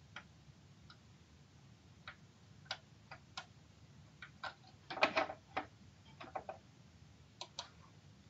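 Computer mouse clicking and its scroll wheel ticking as a web page is scrolled: scattered, irregular clicks, with a quick run of them about five seconds in and a pair near the end.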